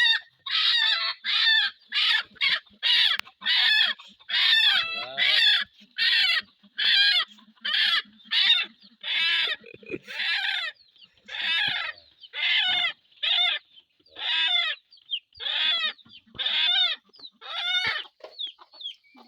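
Pahari hill chickens calling, a long run of short repeated calls at about one or two a second.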